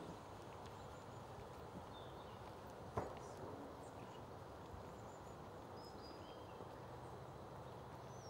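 Quiet outdoor ambience with a horse walking on a sand arena, its hoofbeats faint and muffled. A few faint high chirps, and one sharp click about three seconds in.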